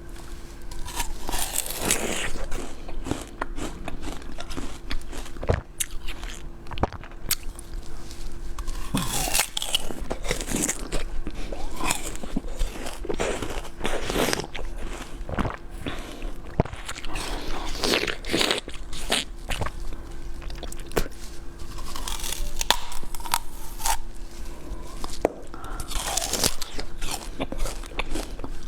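Close-miked mukbang eating: a person biting into and chewing cakes, with many short clicks and irregular bursts of noise, over a faint steady hum.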